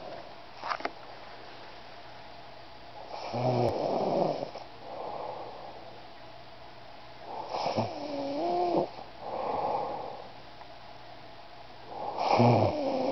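Sleeper snoring in slow breaths: three loud snores about four seconds apart, each followed by a softer snore. The later two carry a wavering whistle-like tone.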